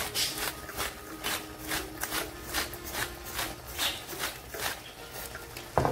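Salt shaken from a shaker into a pot, a regular run of short gritty rasps about two to three a second, with one louder knock near the end.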